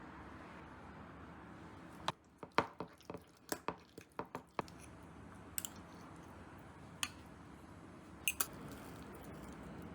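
Kitchen handling sounds: a quick run of light clicks and taps from utensils and containers about two seconds in, then a few single clicks, over a steady background hiss.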